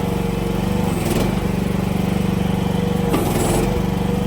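AGT QK16-R mini excavator's small engine running steadily. About a second in and again about three seconds in, there are short surges of noise and a break in the engine note as the hydraulics work the front blade under load.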